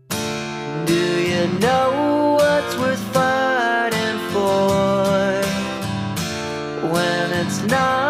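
Music: a guitar-led song with strummed guitar, starting abruptly.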